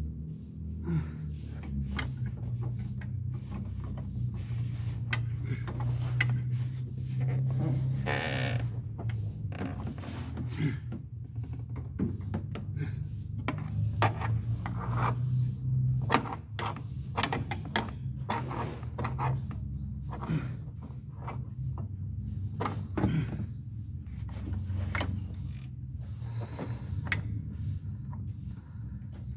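Scattered clicks and knocks of hand tools and car parts being handled during clutch master cylinder work, over a steady low hum.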